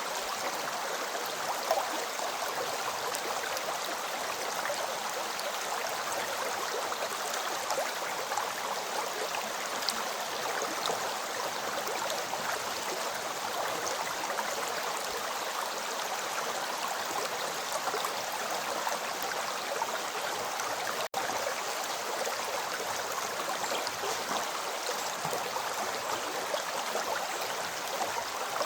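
River water flowing with a steady rushing and gurgling. The sound cuts out for an instant about three-quarters of the way through.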